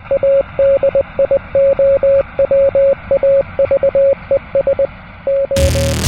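Morse code on a shortwave radio: a single steady tone keyed in short and long marks, dots and dashes, over band-limited hiss. About half a second before the end, a loud electronic synth sound cuts in.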